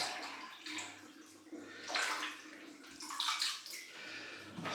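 Water splashing in a wash basin in short, uneven spurts, the loudest about two and three seconds in.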